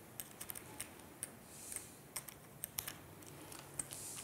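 Faint, irregular light clicks and ticks of a #1 Phillips screwdriver working small screws back through a holster's tension spring into its pad, about a dozen clicks scattered over a few seconds.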